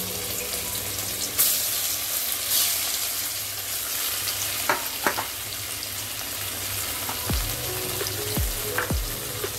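Paneer cubes sizzling in hot oil in a kadhai, a steady frying hiss that flares up louder as pieces are dropped in, about one and a half seconds in and again a second later.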